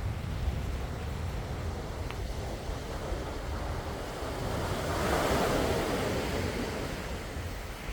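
Calm sea waves washing ashore, one wave swelling into a broad wash about five seconds in and then fading, over a steady low rumble.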